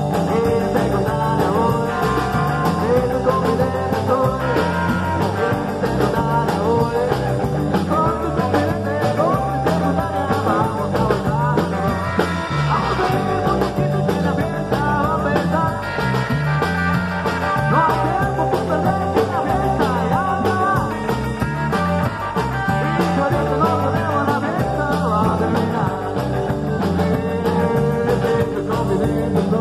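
A live rock and roll band playing a song: upright double bass and drum kit keeping a steady beat, with guitar lines over the top.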